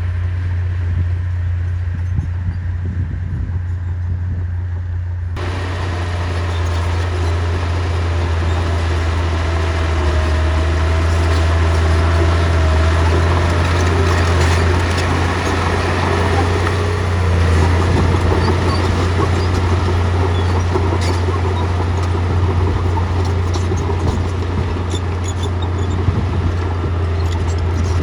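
Heavy diesel engine of a bulldozer running steadily with a deep, constant rumble. About five seconds in, a louder layer of hiss and clatter from the working machine comes in abruptly.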